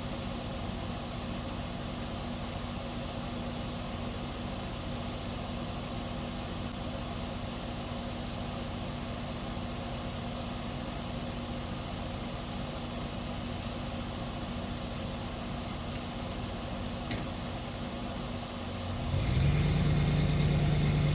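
Tractor engine idling steadily, then revving up near the end and holding at the higher speed.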